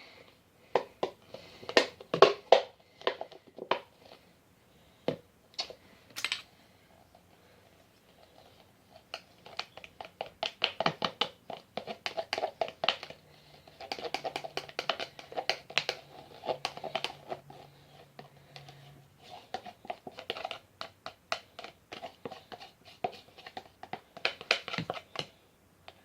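Hands handling a glue cup, a bowl and utensils while transferring runny glue into the bowl: irregular clicks and scrapes, with stretches of quick small clicks.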